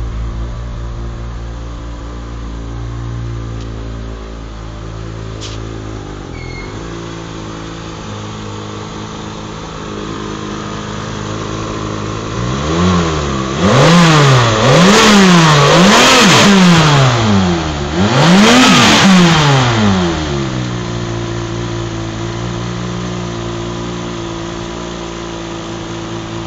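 BMW M5 E34 straight-six with a Sebring exhaust silencer idling steadily, then blipped four times in quick succession about halfway through, the pitch rising and falling with each blip, before settling back to idle.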